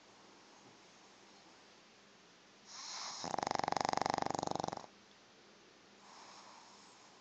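A pug snoring. About three seconds in comes one loud, rattling snore lasting about two seconds, and a fainter snoring breath follows near the end.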